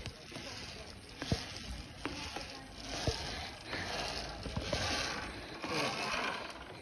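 Rustling and rubbing on a chest-worn phone's microphone as its wearer crosses a high-ropes bridge of wooden rungs on steel cables. Scattered sharp clicks and knocks, about one a second, come from the clips, cables and boots on the rungs.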